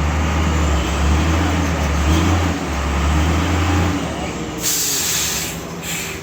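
Heavy truck engine running with a deep, steady drone that fades about four seconds in. It is followed by a loud release of air from the truck's air brakes lasting about a second, then a couple of shorter hisses.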